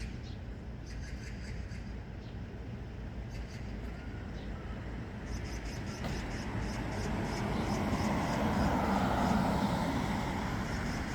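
Street traffic noise: a steady low rumble, with a vehicle passing that swells up past the middle and eases off near the end.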